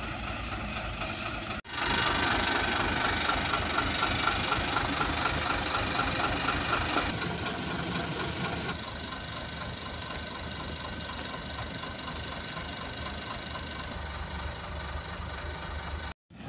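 Mitsubishi Fuso dump truck's diesel engine running, the sound changing across a few edits, with a brief cutout about a second and a half in and again near the end. The loudest running comes in the first half.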